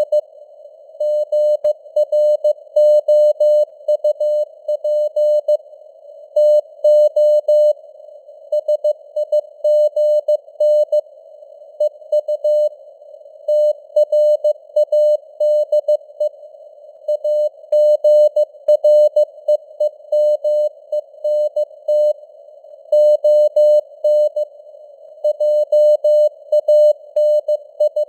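Morse code (CW) sent at 15 words per minute: a single steady tone keyed on and off in dots and dashes, with pauses between letters and words. It sits in a narrow band of simulated radio receiver noise.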